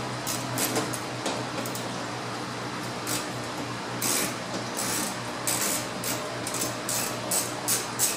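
Short, irregular clicks and scrapes of hand tools and plastic trim fasteners being worked loose at a car's front bumper cover and wheel-well liner, coming more often in the second half, over a steady low hum.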